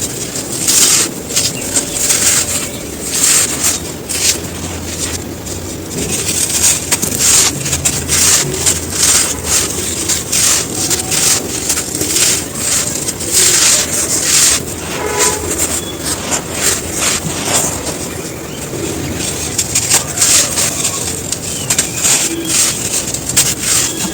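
Dry, crispy clumps of pure sand being crumbled, a dense run of crunching and crackling with a dusty hiss.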